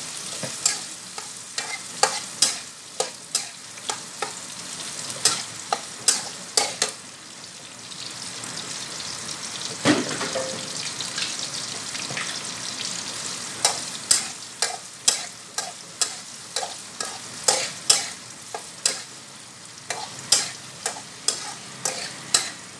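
Metal spatula clanking and scraping against a metal wok as Chinese sausage, fish balls and green beans stir-fry over high heat, with a steady sizzle of frying underneath. Midway the stirring stops for a few seconds, leaving only the sizzle, then the clanking resumes.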